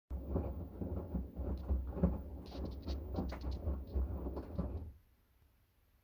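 LG 9 kg direct-drive front-loading washing machine tumbling a wet, soapy load: water sloshing and clothes thudding in the drum over a low rumble, with splashy ticks. It stops suddenly about five seconds in as the drum pauses.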